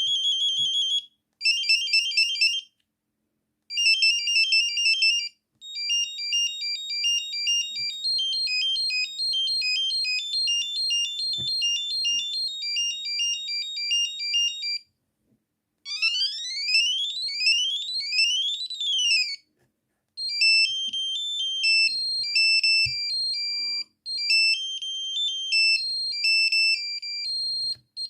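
Samsung SGH-N710 mobile phone playing its built-in tones one after another through its speaker: high electronic beeping melodies, a single line of notes each, separated by short pauses. One of them, about halfway through, is made of rising and falling sweeps.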